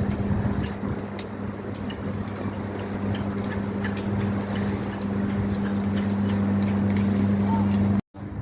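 Steady low hum at a fixed pitch over outdoor street noise, with scattered light clicks; it cuts off abruptly near the end.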